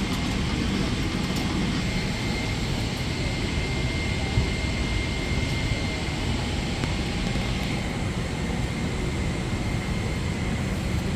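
Steady cabin noise inside a Boeing 747-8i airliner: an even, low rushing of engines and airflow, with a faint steady high tone running through it and one small tick about four seconds in.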